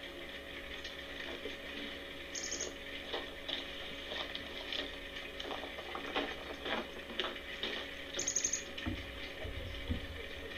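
Scattered small clicks, rattles and scrapes of someone handling things and moving around, with two brief high chirps, about two and eight seconds in.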